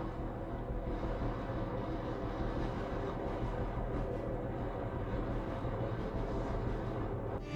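Steady low rumble with a constant hum beneath it.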